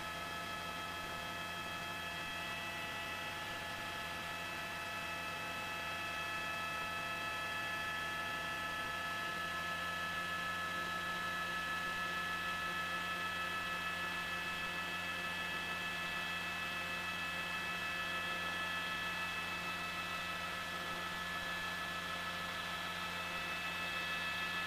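Eurocopter AS350 B2 helicopter in flight: its Turbomeca Arriel turboshaft and gearbox give a steady whine of several high tones over a low hum. It gets a little louder about six seconds in.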